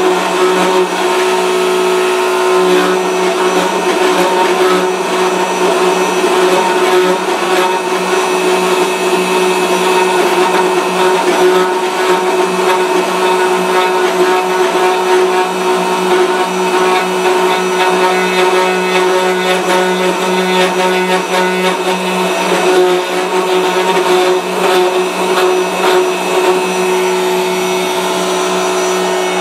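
Router motor of a multi-spindle gunstock duplicating carver running steadily at high speed, its row of bits cutting English walnut gunstock blanks for the final shaping. The noise is rough and uneven while the bits are cutting, and evens out near the end as the cutting lets up with the motor still running.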